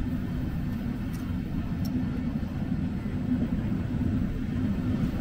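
Train running in the station: a steady low rumble with a constant hum.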